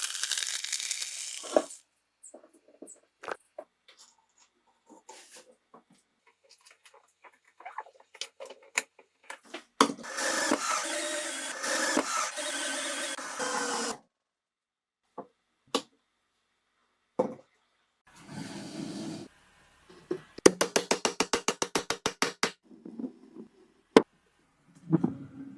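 Woodworking tool sounds in short separate bursts that start and stop abruptly. There are scattered taps and knocks, a steady noisy tool run for about four seconds in the middle, and a fast, even run of strikes at about ten a second a few seconds from the end.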